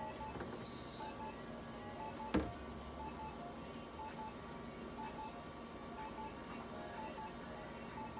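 Short electronic beeps, in quick pairs and repeating about once a second, from a handheld light-therapy probe held glowing red against a cat's back. There is a faint steady hum under them and one soft thump a couple of seconds in.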